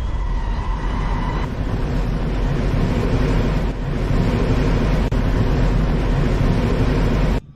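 Loud, steady vehicle noise at speed: a dense rush with a deep rumble underneath, cutting off suddenly near the end.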